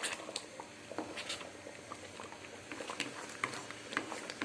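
Thick wheat halwa bubbling in a kadai, giving off irregular soft pops and plops.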